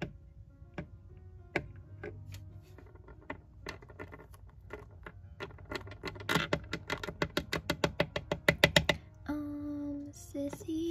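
Soft background music with a steady clock-like ticking beat. About six seconds in, a quicker, louder run of ticks or taps comes for about three seconds, and it is followed by a short held pitched tone near the end.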